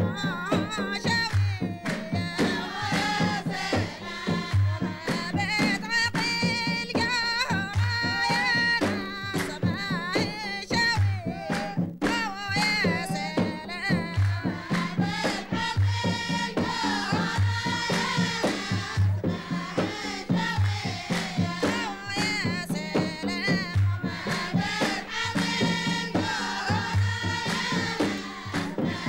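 Omani Sawt Silam folk music: a chorus of women singing a wavering melody together over hand drums beating a steady, repeating rhythm, with handclapping.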